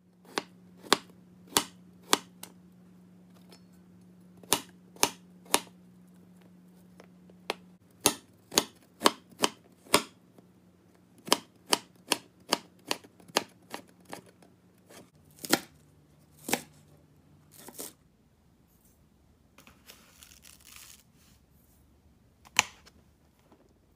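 Chef's knife chopping vegetables on a wooden-fibre cutting board: single sharp knocks of the blade, in runs of about two a second. Near the end the chopping stops, followed by a brief soft hiss of sugar poured into a glass bowl and one more knock.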